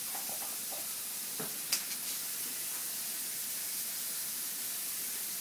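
Steady high-pitched background hiss, with a faint knock and then one sharp click just under two seconds in.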